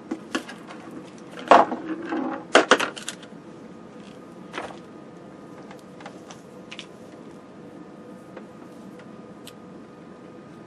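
Clicks and knocks from handling a Fluke 27/FM digital multimeter as it is set to its resistance range and put down on the bench, then its test leads being picked up. The loudest clatter comes about one and a half to three seconds in, with a few lighter clicks later, over a faint steady hum.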